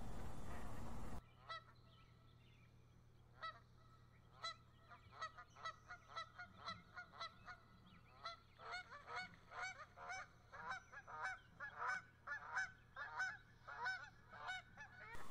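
A flock of geese honking in flight. The calls start sparse and build to a dense overlapping chorus over the second half. Before them, about a second in, a steady hiss cuts off suddenly.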